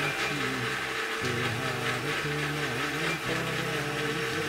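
Activa electric blender running steadily at speed, churning banana, oats, nuts and milk into a smoothie.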